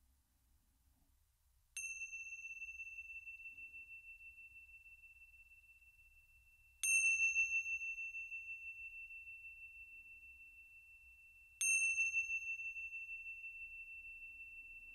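Tingsha, small Tibetan hand cymbals on a cord, struck together three times about five seconds apart. Each strike rings out in one long, high, wavering tone that slowly dies away; the second strike is the loudest. The chimes mark the start of a meditation sitting.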